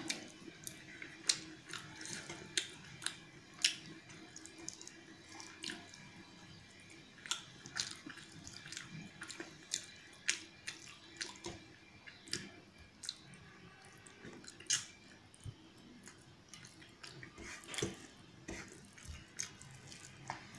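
A person chewing a mouthful of rice and curry with the mouth open, making many irregular wet clicks and lip smacks.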